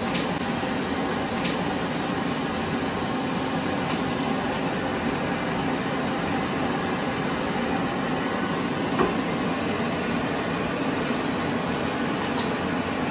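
A steady rush of machine-blown air, like a fan or blower running continuously, with a few brief high ticks or swishes over it.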